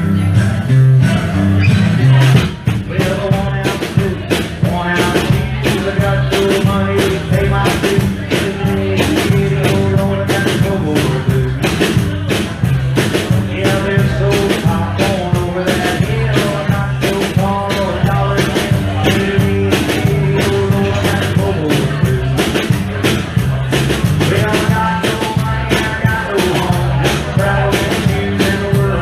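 Live rock band playing a blues-rock song, with drums keeping a steady beat under the instruments.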